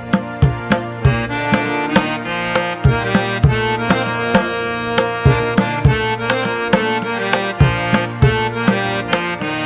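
Music with a quick, steady hand-drum beat under a sustained melodic instrument.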